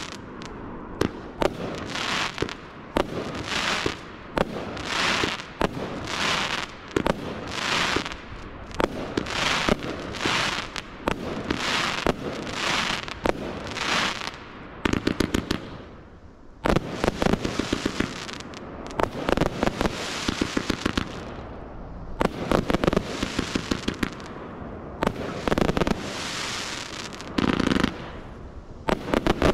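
Pyroworx Rapture 80-shot 25 mm firework barrage firing: a steady run of sharp shots and bursts, about three every two seconds. From about halfway it gives way to clusters of rapid crackling bursts with short lulls between them.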